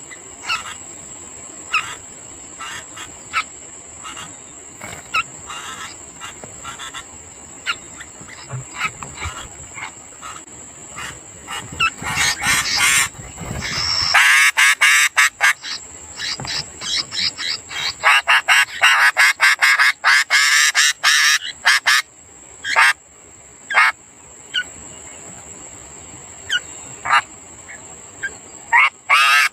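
Sooty-headed bulbul nestlings begging with short, harsh chirps, scattered at first and then a rapid run of calls for about ten seconds around the middle, as the parent feeds them.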